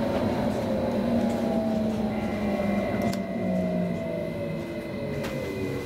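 Inside an Sm5 (Stadler FLIRT) electric commuter train as it slows for a station: the traction motors' whine falls steadily in pitch over the rumble of the wheels on the track.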